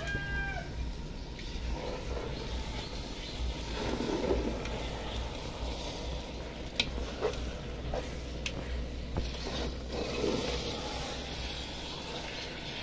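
Metal spoon stirring slices of cashew apple in thick caramel syrup in an aluminium pressure-cooker pan, with a few sharp clinks of the spoon against the pot over a steady background hiss and hum.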